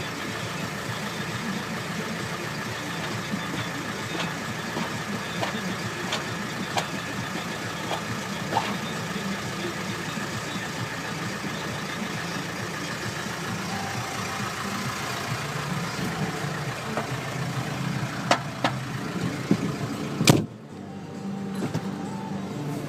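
New Holland T6020 tractor's diesel engine running steadily, with scattered clicks and knocks over it. About 20 seconds in there is a sharp crack, and then the sound abruptly drops and thins.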